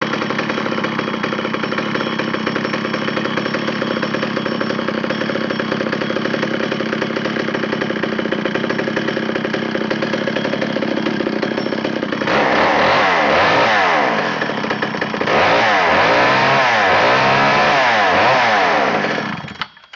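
Two-stroke chainsaw engine, a McCulloch 125 fitted with a highly modified 101B motor, running steadily for about twelve seconds and then revved up and down repeatedly before shutting off just before the end.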